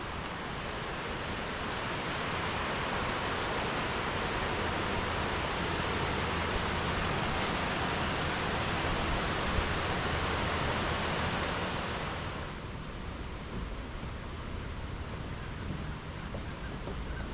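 Steady rush of falling water from a waterfall, a dense hiss that swells over the first few seconds and drops suddenly to a softer rush about twelve seconds in.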